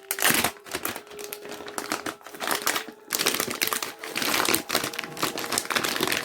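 A sealed packet of card miniatures crinkling as it is handled, with steady crackling that grows denser about halfway through.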